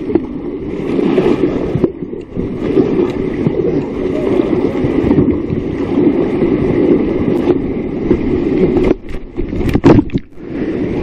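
Whitewater rushing and splashing around a kayak running a river rapid, heard close to the water. It holds steady, with a few sharp knocks about nine to ten seconds in as a hand handles the camera.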